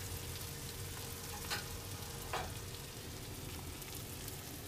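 Onions and jalapeños frying in olive oil in a skillet, a steady sizzle as they cook down, with two brief knocks about one and a half and two and a half seconds in.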